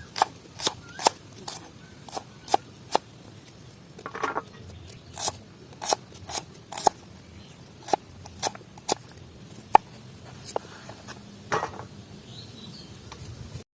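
An onion being cut with a knife: a run of sharp, crisp cuts, some in quick succession and some spaced apart, with short pauses between runs.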